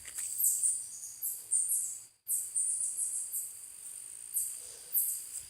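Crickets chirping: a steady high whine under a run of short, very high chirps that repeat throughout.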